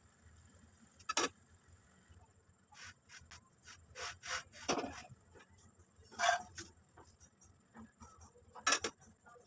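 A gloved hand pressing and shifting a semolina flatbread on a dry iron tawa: scattered short taps, scrapes and glove crinkles at irregular intervals, the loudest just after six seconds in and near the end.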